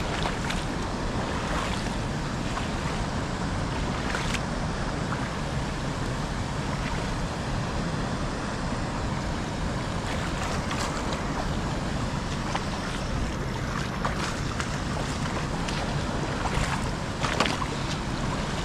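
Steady rushing noise, heaviest in the low end, with a few brief knocks or splashes about four, eleven and seventeen seconds in.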